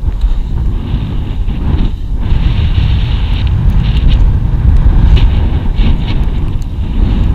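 Wind buffeting the microphone in hurricane conditions: a loud, uneven low rumble that rises and falls continually.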